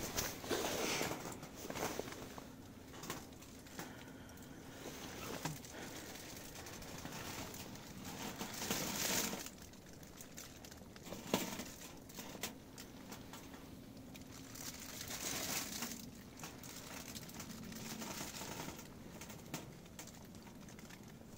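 Tent fabric rustling in a few slow swells, with scattered small crackles from a wood stove fire.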